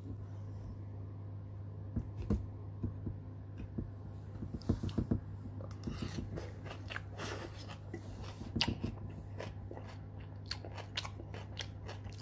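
A person chewing a mouthful of raw shredded white-cabbage salad, crunching in many short, irregular clicks, over a steady low hum.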